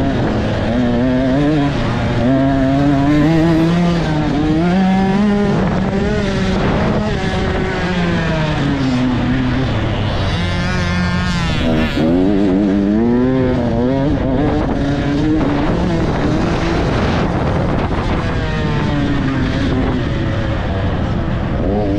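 Dirt bike engine under hard riding, its pitch repeatedly climbing as it revs out and then dropping back, over and over.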